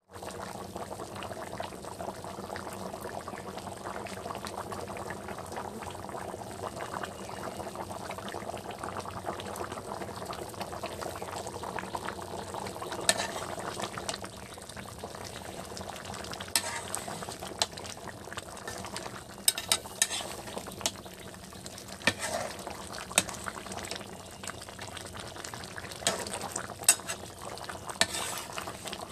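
Mutton and potato curry bubbling at a full boil in a metal pot. From about halfway through, a metal spatula stirs it, giving a scatter of sharp clicks against the pot.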